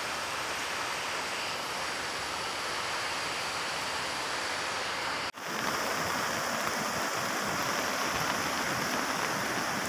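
Fast-flowing floodwater rushing through a street, a steady noise of running water. It breaks off for an instant about five seconds in and returns slightly louder.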